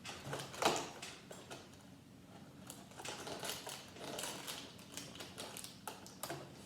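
Light, irregular clicks and rattles of small plastic LEGO pieces being handled, thickest in the second half.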